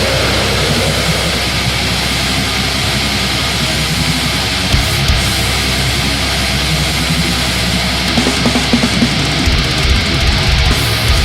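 Death metal song: heavily distorted guitars and bass over drums, dense and loud throughout, with the low drum hits getting busier near the end.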